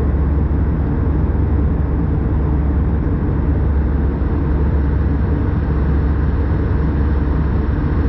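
Steady cabin noise of an Airbus A320-214 in cruise: a constant low rumble of the engines and airflow, with no whine and no change in level.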